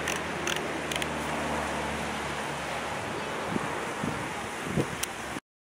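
Wind buffeting the microphone, with a few sharp clicks and rustles as a bicycle helmet is put on and its chin strap buckled. The sound cuts off abruptly near the end.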